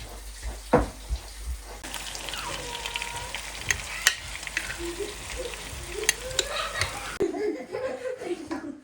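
Food sizzling in a pan while it is stirred, with sharp clicks of a utensil against the pan.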